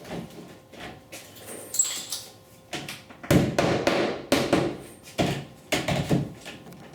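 Vinyl siding pieces being handled and knocked together: a run of irregular clattering knocks and rattles, busiest in the second half.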